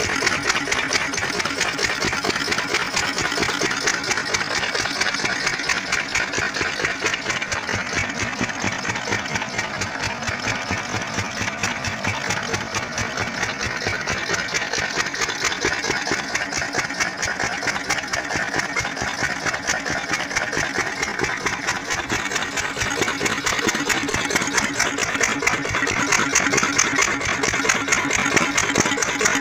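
Old single-cylinder stationary diesel engine of an irrigation pumpset, running steadily with an even, rapid beat.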